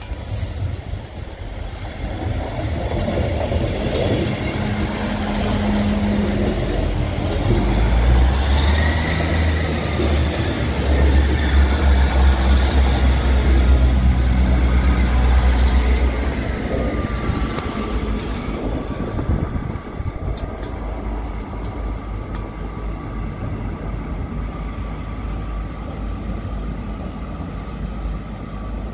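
GWR Class 158 diesel multiple unit approaching and running past close by: the rumble of its underfloor diesel engines builds to its loudest about a third of the way in and holds for several seconds as the carriages pass. It then eases to a steadier, quieter hum as the train draws away.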